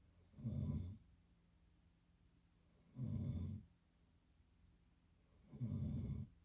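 Snoring: three short snores, each about half a second long, coming evenly about every two and a half seconds with quiet breathing gaps between.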